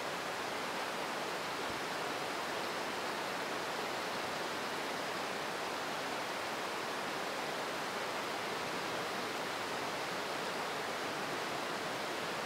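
Very heavy rain falling in a steady, even hiss that does not change.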